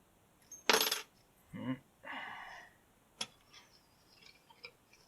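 Lock picking on a Commando padlock: a short metallic rattle of the pick and tensioner in the keyway about a second in, a single sharp click a little after three seconds, and faint small ticks of the pick working the pins. Two brief low vocal murmurs from the picker come in between.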